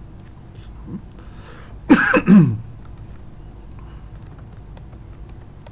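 A man clears his throat with two quick coughs about two seconds in, the second sliding down in pitch. Faint computer-keyboard key clicks follow.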